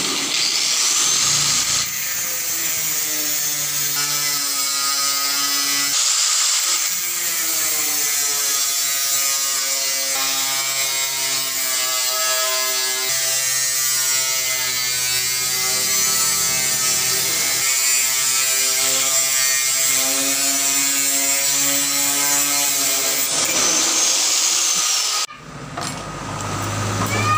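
Angle grinder with a cutting disc slicing through a 1.4 mm galvanized iron sheet: a loud, steady grinding hiss of disc on metal with changing tones underneath. It cuts off suddenly near the end.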